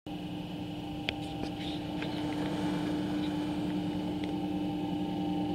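Jones and Shipman 1307 universal cylindrical grinder running: its motors give a steady hum, with a few faint clicks about a second in and again later.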